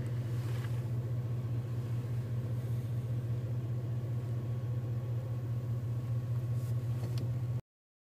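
A vehicle engine idling steadily with a low hum, heard from inside the cab; it cuts off suddenly near the end.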